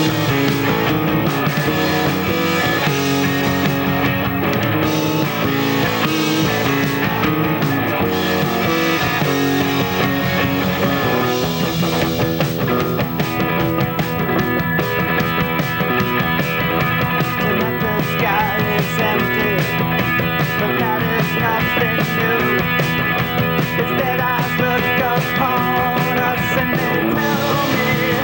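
Rock music with guitars and a steady beat; the texture thickens about twelve seconds in.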